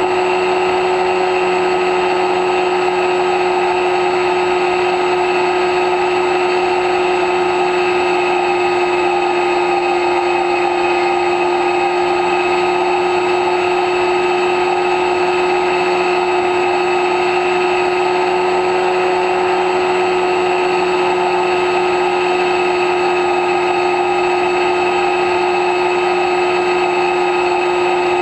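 X-UAV Talon's electric motor and pusher propeller running at a steady throttle in flight: a constant high whine that holds one pitch, with a rushing noise beneath it.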